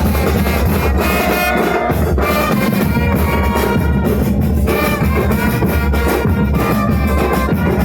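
A brass and drum band playing: trumpets and trombones carry a tune over steady, heavy bass drums.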